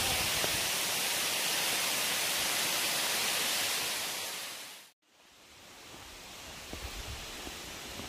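Steady rush of a waterfall, fading out to a moment of silence about five seconds in. A quieter outdoor hiss with some low rumbling then fades back in.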